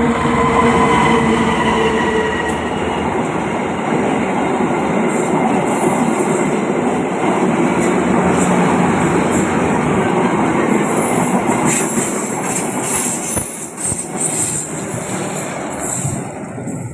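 Passenger train cars passing close on a gentle curve: a loud, steady rumble of wheels on the rails. A few steady tones fade out over the first few seconds, and high squeals from the wheels come in the later part. The sound drops off near the end as the train goes by.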